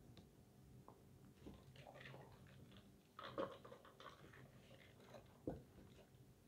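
Faint chewing of fried fast food, with small wet mouth clicks. A little past halfway comes a louder sip through a plastic drinking straw from a paper soda cup, and near the end a short thump as the cup is set back down.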